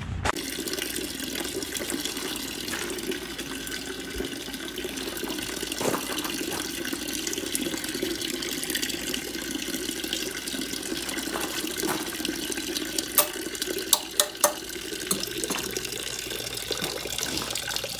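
Water pouring steadily from a drain hose into a plastic bucket as an electric water heater is drained. A few sharp clicks come a little past the middle.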